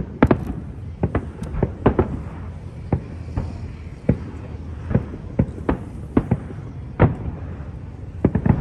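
Fireworks display: shells bursting in an uneven string of sharp bangs, about twenty of them, some in quick pairs, over a steady low rumble.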